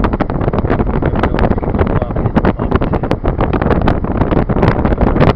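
Moving car with loud wind buffeting the microphone and road noise, full of sharp crackles, getting louder right at the start.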